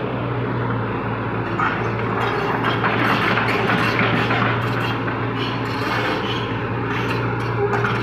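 Crawler excavator's diesel engine running steadily, with scattered metallic clanks as the machine manoeuvres on its steel tracks.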